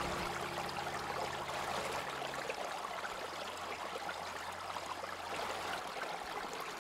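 Shallow water running steadily over a bed of white marble pebbles in a stone-lined channel, babbling and trickling.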